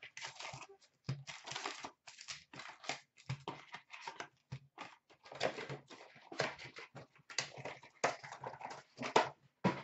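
Rustling and crinkling of paper, plastic wrap and packs of hockey cards, in quick irregular scratches and crackles, as an opened box of card packs is unpacked by hand.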